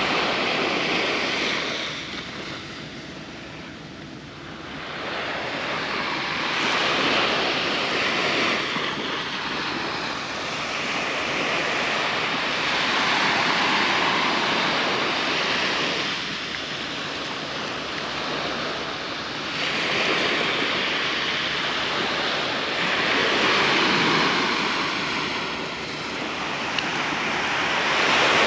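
Sea surf breaking on a beach, a steady wash of noise that swells and fades every four to six seconds as waves come in, with some wind on the microphone.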